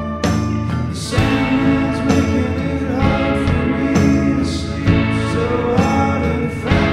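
Dream-pop/shoegaze band recording: layered guitars and drums with a sung voice over them.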